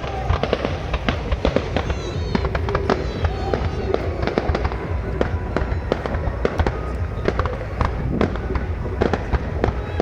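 Fireworks display: a dense, irregular run of bangs and crackles from bursting shells, with music and voices underneath.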